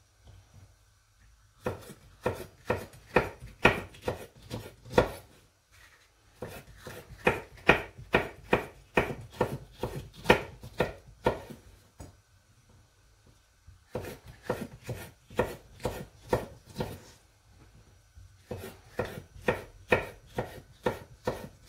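Chef's knife chopping fresh chillies on a bamboo cutting board: runs of quick, even knocks, about three a second, broken by short pauses.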